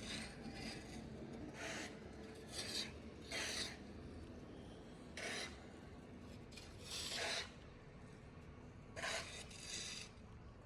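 Short rough rasping scrapes, about seven of them at uneven intervals, each lasting under half a second.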